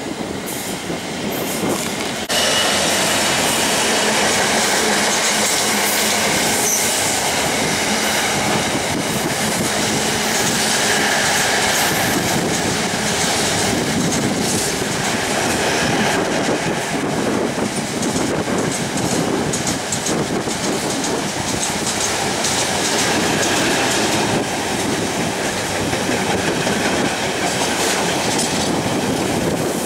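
A Class 66 diesel locomotive passes hauling a long intermodal container train, and its container wagons keep rolling by with a steady rumble and wheels clattering over the rail joints. The sound steps up about two seconds in and stays loud.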